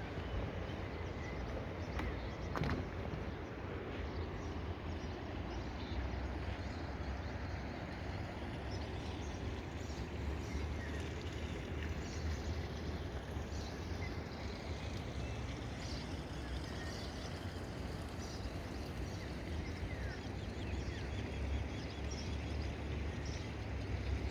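Steady rush of splashing water with small birds chirping now and then, over a low rumble.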